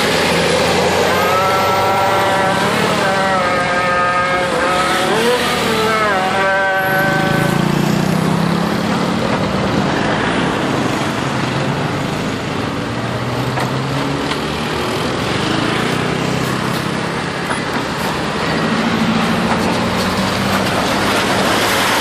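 Tour bus 'telolet' multi-tone air horn playing a short tune of stepping notes for about six seconds. This is followed by the low rumble of bus engines and road noise from passing traffic.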